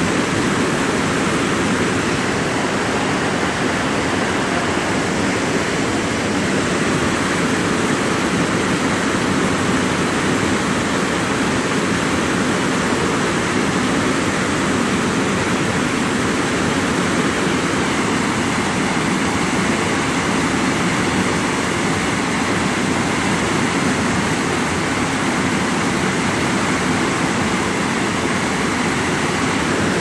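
Mountain-stream cascade of white water pouring down steep rock slabs: a loud, steady rush that does not change.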